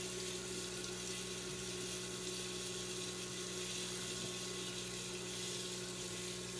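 A steady hum with a constant hiss underneath, unchanging throughout; no other sound stands out.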